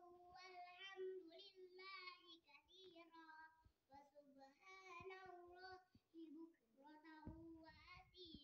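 A child's voice singing faintly, a wavering melodic line that runs on with short breaks for breath.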